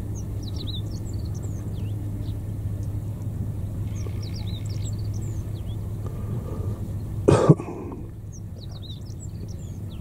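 Small birds chirping in short clusters of quick falling notes, over a steady low hum. A loud, brief thump breaks in about seven seconds in.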